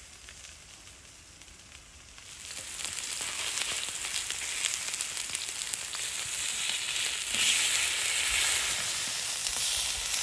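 Vegetables frying in rendered lamb fat on a flat stone slab heated over a fire. The sizzling is faint at first, swells about two seconds in and gets louder again near the end.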